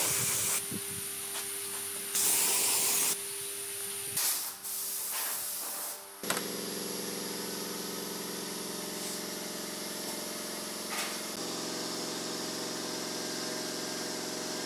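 Three short bursts of spraying hiss, each about a second long. About six seconds in, a steady electric-motor hum starts suddenly and runs on, its tone shifting about five seconds later.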